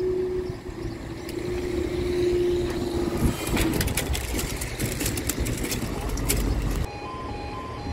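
Train passing over a level crossing: a steady droning tone stops about three seconds in, followed by a run of sharp clicks and rumble. About a second before the end, the crossing's alarm starts, two tones alternating.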